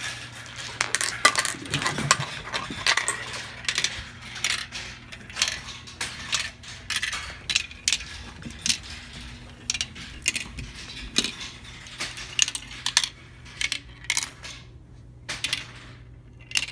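Marbles rolling and clacking through a marble run: a fast, irregular string of small hard clicks and rattles, thinning to a few scattered clicks near the end, over a steady low hum.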